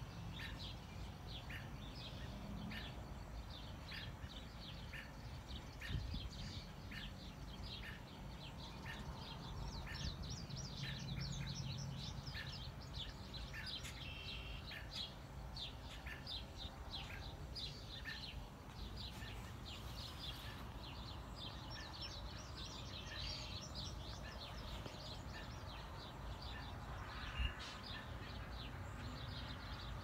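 Wild birds chirping outdoors, a steady stream of short, high chirps repeating a couple of times a second over a low background hum. Two brief knocks stand out, one a few seconds in and one near the end.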